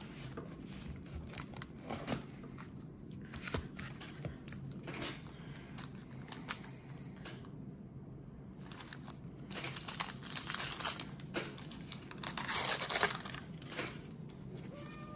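Paper wax-pack wrappers of 1991 Donruss baseball cards being torn open and crinkled. The tearing comes in scattered bursts, with a short lull and then a busier spell near the end.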